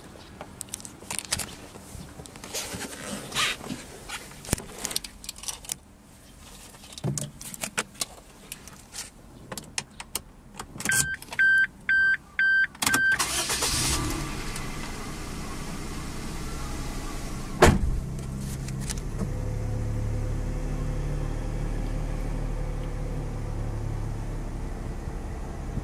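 Inside the cabin of a Suzuki Alto L: clicks and knocks of someone settling into the driver's seat, then a quick series of beeps from the car's chime. The 660 cc three-cylinder engine then starts about halfway through and settles into a steady idle, with one sharp knock a few seconds after it catches.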